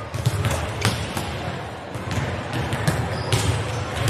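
Volleyballs being struck and bouncing on a gym floor during warm-up passing: irregular sharp smacks, several a second, echoing in a large gymnasium.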